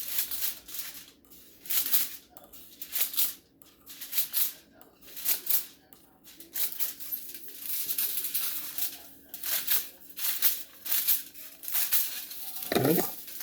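Scissors cutting a sheet of aluminum foil into strips: repeated crisp snips with the crinkle of the foil, roughly one or two a second.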